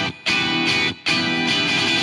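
Outro music led by guitar, with brief breaks between phrases.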